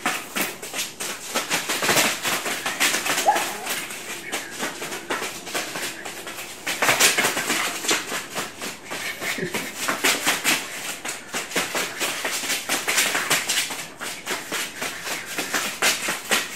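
A Jindo dog's paws and claws scrabbling fast on a foam floor mat as it runs tight circles, a rapid, uneven run of many taps and scuffs a second.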